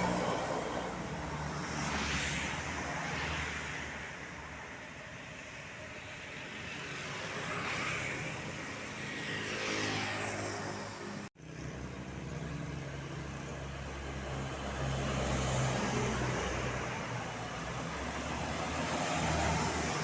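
Road traffic: engines running and several vehicles passing by, each swelling and fading, with a brief dropout about eleven seconds in.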